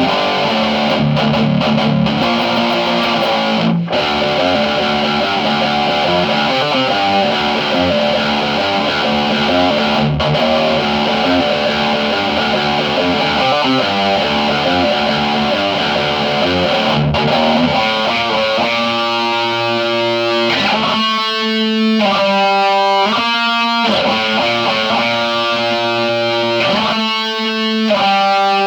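Electric guitar played through a Friedman Sir-Compre compressor and overdrive pedal, with a distorted, sustained tone. About two-thirds of the way through, the playing changes to separate chords struck and let ring, with short gaps between them.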